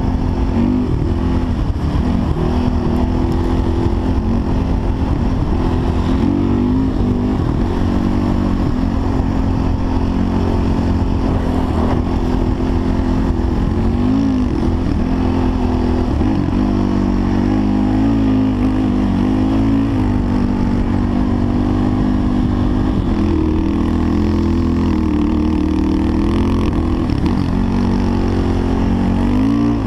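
Engine of an off-road machine being ridden through dune sand at sustained revs, its pitch rising and dipping again and again with the throttle. A steady rush of wind runs under it.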